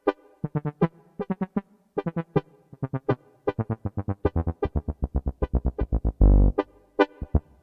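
A Yamaha PSR-S670 keyboard plays a sampled Tierra Caliente-style tuba in a fast run of short, separate notes. About six seconds in comes one longer, louder low note.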